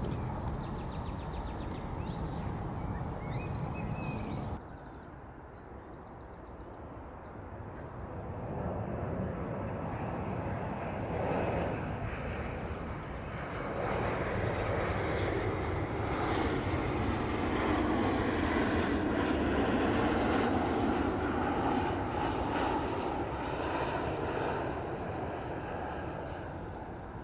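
Distant jet airliner flying high overhead, heard from the ground as a low, steady rumble that swells over several seconds and then slowly fades. An abrupt cut comes about four and a half seconds in.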